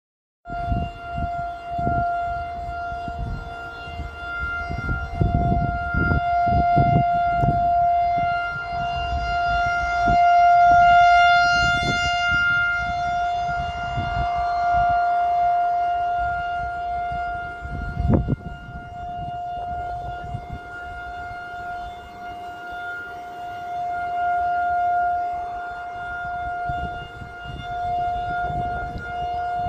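Outdoor civil-defense warning siren sounding its monthly test. It holds one steady pitch while its loudness swells and fades, loudest about ten seconds in and rising again near the end. Irregular low rumbling runs underneath.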